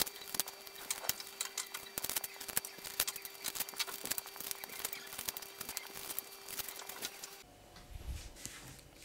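Paper cupcake liners being pulled apart and set down on a tray: a quick run of crisp paper rustles and light ticks that stops abruptly about seven seconds in, followed by a soft low bump.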